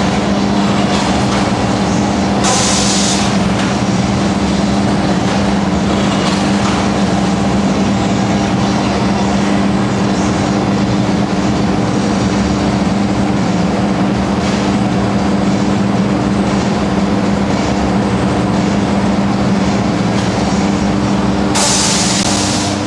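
Industrial machinery in a fertiliser installation running steadily, with a constant droning hum. Two short bursts of hissing, each about a second long, cut in: one a couple of seconds in and one near the end.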